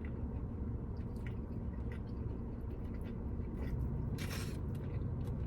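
A person chewing a bite of smoked burnt end close to the microphone, with a few soft mouth clicks over a low steady hum.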